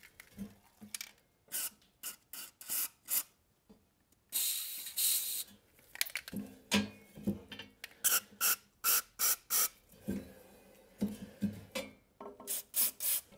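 Aerosol can of anti-seize spraying through its straw into the gaps between the snowblower auger and its shaft, in a string of short bursts with one longer hiss about four seconds in.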